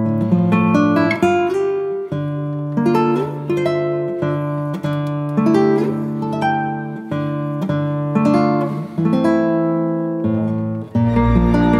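Background music: a plucked guitar playing a melody of single picked notes that ring and fade. About eleven seconds in it gives way to a fuller track with a held low tone.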